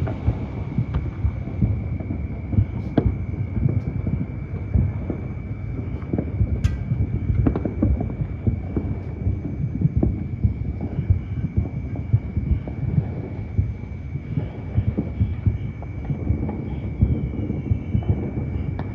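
Fireworks going off: a dense, continuous run of low booms and thuds, with a steady thin high tone running underneath.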